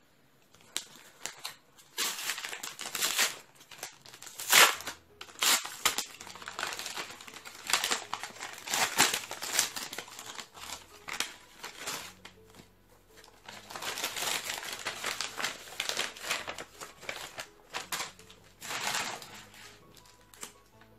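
Plastic packaging crinkling and rustling in irregular bursts as it is handled and pulled off an item, with a sharp loud crackle about four and a half seconds in.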